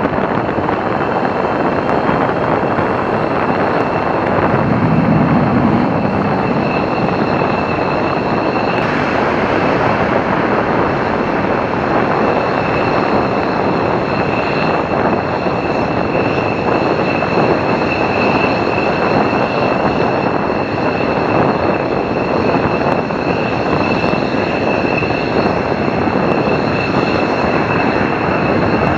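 F/A-18C Hornet jet engines on an afterburner takeoff roll and climb-out: a loud, steady jet roar with a steady high whine over it.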